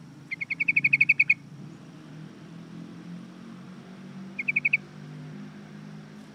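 Yellow-vented bulbul calling: a fast run of about ten repeated, rising-in-loudness chattering notes. A few seconds later comes a shorter, quieter run of four.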